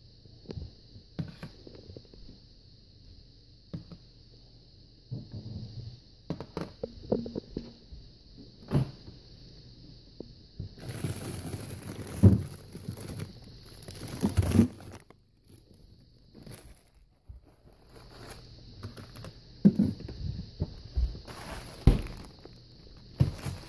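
Kitchen handling noises: scattered knocks and clicks, with a few seconds of crinkly rustling about halfway through while frozen food packages are moved about in a freezer. A faint steady high-pitched hiss sits underneath and drops out for a few seconds after the rustling.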